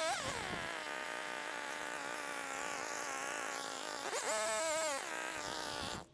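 Small two-stroke engine of a handheld gas trimming tool: it comes down from a high rev to idle right at the start, revs up sharply about four seconds in, drops back and then cuts off abruptly near the end.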